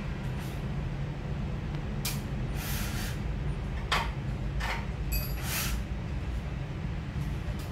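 A few sharp knocks and short hissy bursts of screw-driving work on a wooden ceiling frame with a cordless drill, over a steady low hum.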